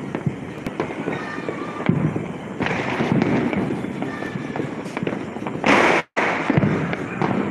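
Diwali firecrackers and fireworks going off all over the neighbourhood: a dense, continuous crackle of bangs and pops at varying distances. A louder rushing burst comes near the end, cut off by a brief dropout.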